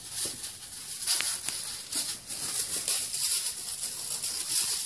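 Rustling and crinkling of small plastic bags of black powder as shell lift charges are handled and fitted with leader fuses: a steady high hiss with a few faint crackles.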